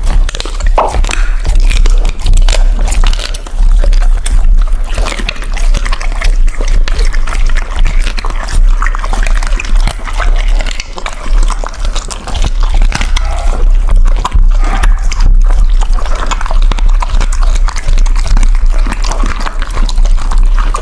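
Loud background music with a steady heavy bass.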